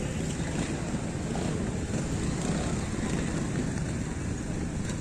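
Wind buffeting the microphone: a steady low rumble with no clear engine note.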